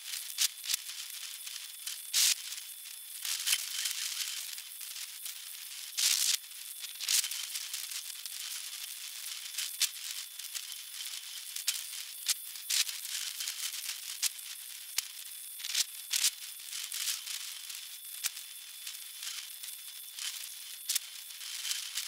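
Steady high hiss with irregular crackles and sharp clicks scattered through it, the loudest a couple of seconds in and around six seconds.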